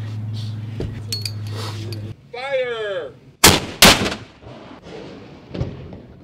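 A ship's muzzle-to-breech bombardetta gun firing: two loud bangs less than half a second apart, about three and a half seconds in.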